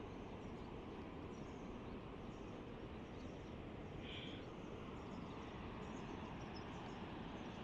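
Steady faint outdoor background hiss, with a single short bird call about four seconds in.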